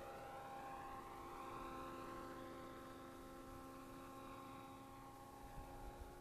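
Align T-Rex 500E electric RC helicopter in flight, heard faintly: a steady hum of several held tones from its motor and rotor, with higher tones that rise and then fall over a few seconds.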